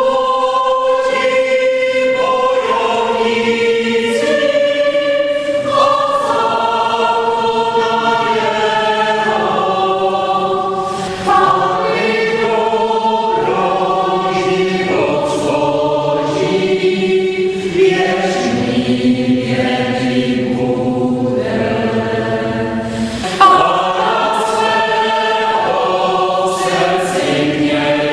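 Mixed choir of women's and men's voices singing in harmony, mostly long held notes, with new phrases entering sharply twice along the way.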